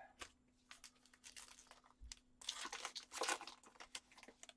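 Crinkling and tearing of a trading-card pack's plastic wrapper as it is opened, with a stronger rustle about halfway through and small clicks of cards being handled.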